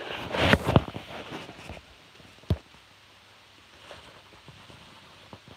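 Handling noise on the camera's microphone: rustling and scraping with a few clicks for the first couple of seconds, then a single sharp knock about two and a half seconds in, then faint room noise.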